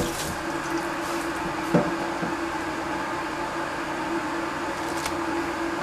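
Steady kitchen-appliance hum, with two light knocks about two seconds in and near the end as things are set down on the tiled counter.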